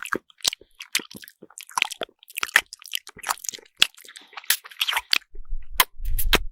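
Cartoon sound effect: a rapid, irregular run of short crunching clicks, with a low rumble underneath near the end.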